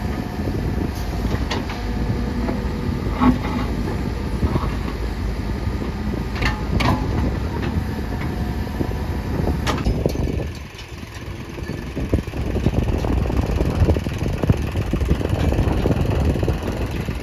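Heavy diesel machinery running while an excavator loads mud, with a few sharp clanks and a brief dip in engine noise about ten seconds in.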